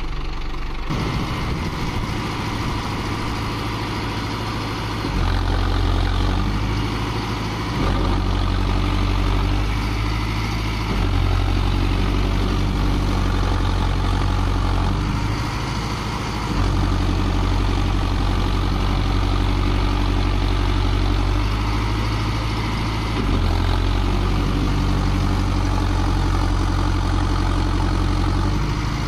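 Mahindra Arjun Novo 605 DI 4WD tractor's diesel engine working under heavy load as it drags a loaded trolley through deep mud. Its low, steady note swells louder in several stretches.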